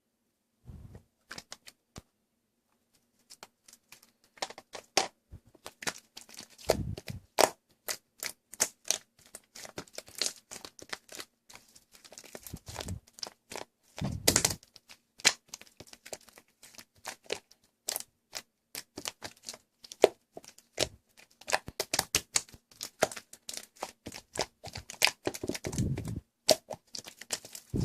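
Slime being squeezed and poked by hand, giving a dense, irregular run of crackling clicks and small pops with a few duller squelching thuds. The first few seconds are nearly silent apart from a couple of soft thumps about a second in.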